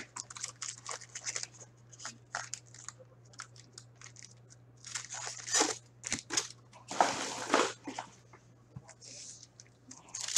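Hands opening a box of Upper Deck Synergy hockey cards and its foil packs: scattered clicks and crackles of cardboard and card stock, with longer bursts of wrapper crinkling and tearing about five and seven seconds in. A steady low hum runs underneath.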